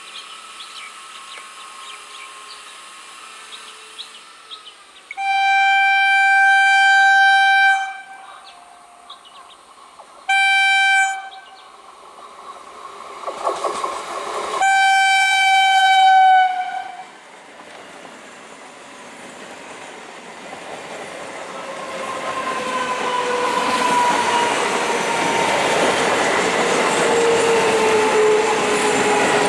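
EMU local train sounding its horn three times, long, short, then long. The train then comes closer and passes with rising rumble and wheel noise, while a whine slowly drops in pitch.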